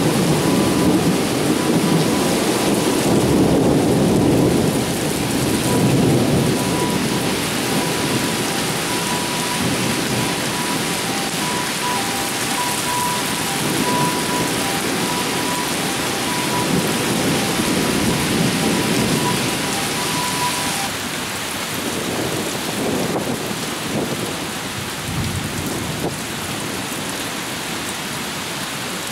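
Torrential thunderstorm rain pouring steadily, with thunder rumbling in long swells, loudest in the first few seconds and dying away toward the end.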